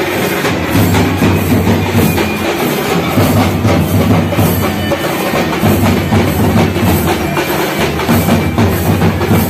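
Drum-led percussion music with a steady beat and sharp clacking strokes over sustained low notes.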